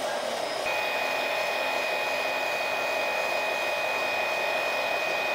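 Electric-driven hydraulic pump of a 1/14-scale RC mobile crane running steadily as the front arm is retracted, with a thin high whine that sets in under a second in and holds.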